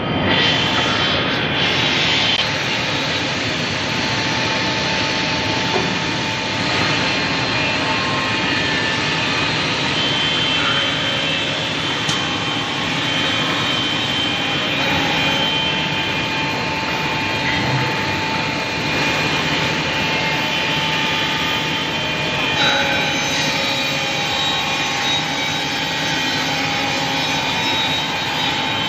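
Woodmaster CNC scroll saw running, a steady loud mechanical noise with a held whine whose pitch shifts slightly now and then.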